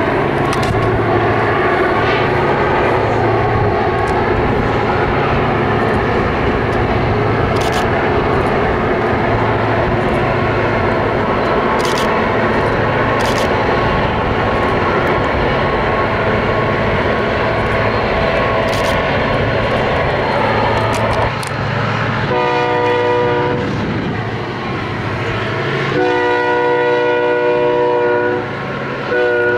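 Loaded grain train rolling past with a steady rumble of wheels on rail and a few sharp metallic clanks. In the last third a locomotive horn sounds: a blast of about a second, a longer blast of about two seconds, and a third beginning at the very end.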